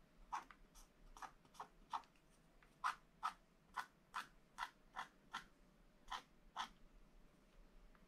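Wooden stylus scratching the black coating off a scratch-art page in about fifteen short, quick strokes, roughly two a second, drawing the needles of a fir tree.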